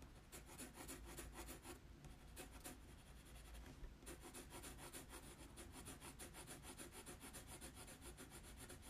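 Pencil scratching faintly on paper in quick back-and-forth shading strokes, filling in a large dark area.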